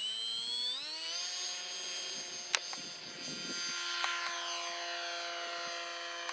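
Bixler 3 RC foam plane's electric motor and pusher propeller spinning up to full throttle for take-off, its whine rising quickly in pitch over about a second, then holding a steady high-pitched whine as the plane climbs out. A single sharp click about two and a half seconds in.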